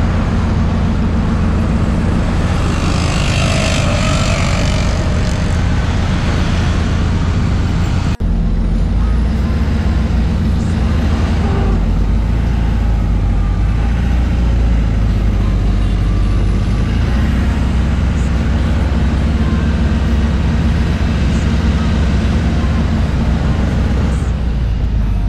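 Flatbed tow truck driving in traffic: its engine runs steadily under a loud wash of road and traffic noise. About eight seconds in, the sound changes suddenly to a deeper engine drone.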